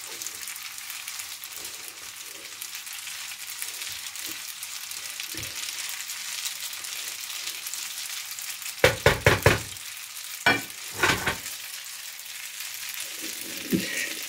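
Spaghetti and scampi sizzling steadily in a frying pan as they are stirred with a spatula, with a quick run of about five sharp knocks against the pan about two-thirds of the way through and a few more shortly after.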